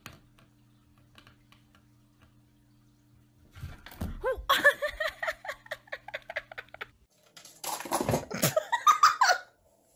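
A faint steady hum with a few small clicks, then a person laughing in rapid repeated bursts from about three and a half seconds in. A second stretch of laughing comes near the end.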